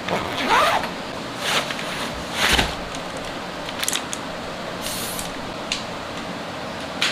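Handling noise from a camera tripod being set up close to the microphone: a series of short swishing scrapes and a few light clicks.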